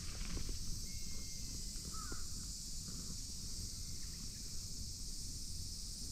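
Rural outdoor ambience: a steady high hiss over a low rumble, with a faint thin whistle about a second in and a short, wavering bird call about two seconds in.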